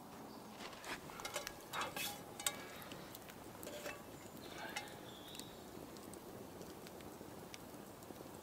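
Wood campfire crackling with scattered sharp pops, and a cluster of knocks and light metallic clatter in the first couple of seconds as a steel frying pan is handled on the metal grill over the fire.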